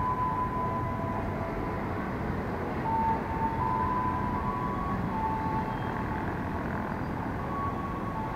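Steady rumble of a KRL Commuterline electric train at the platform, with faint held tones that step up and down in pitch.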